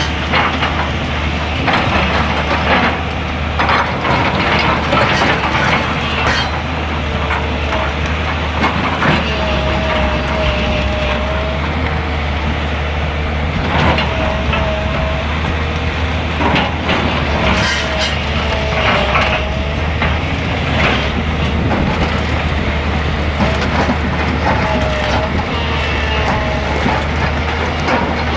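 Excavator engine running steadily under load, with repeated clattering knocks of stone and metal and several short squeals.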